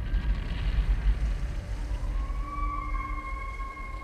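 A long, eerie wailing cry starts about halfway through and is held at a steady pitch over a low rumble; it is the strange cry in the woods that is passed off as just a loon.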